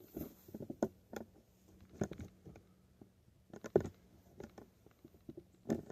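Scattered light clicks and knocks of hands and tools handling bicycle parts, irregular, with the sharpest knock a little past halfway.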